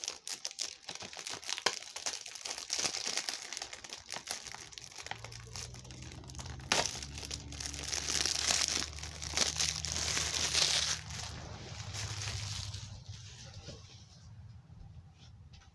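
Plastic shrink wrap being torn and peeled off a DVD case: a long run of crinkling and crackling, busiest in the middle and tapering off near the end.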